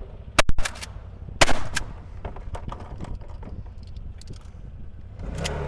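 Twelve-gauge shotgun shots: two quick shots about half a second in and another about a second and a half in, over a side-by-side's engine running.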